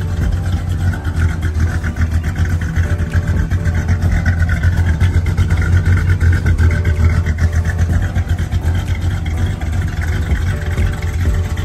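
1979 Chevrolet Caprice Classic's engine running steadily with a low exhaust note at the tailpipe.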